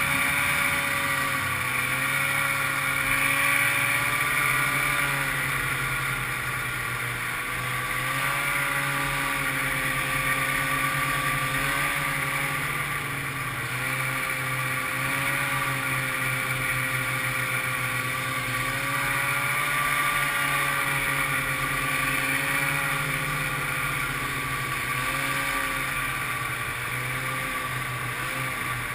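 1995 Ski-Doo Grand Touring snowmobile's two-stroke engine running at trail-cruising speed, its pitch rising and dipping slightly every few seconds as the throttle eases on and off, over a steady rush of track and wind noise.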